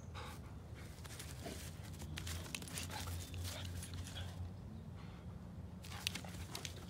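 Malinois and Bouvier puppies play-wrestling on grass: scuffling and rustling with many quick clicks and soft dog sounds, over a steady low hum.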